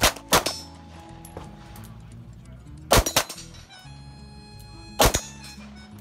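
Handgun shots: sharp reports in three quick groups, one right at the start, one about 3 s in, and one about 5 s in, each with a second crack close behind. Background music runs underneath.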